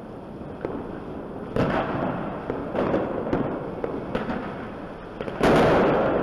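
Aerial fireworks display: shells bursting in scattered single bangs, then a sudden, much louder dense barrage of bangs sets in about five and a half seconds in.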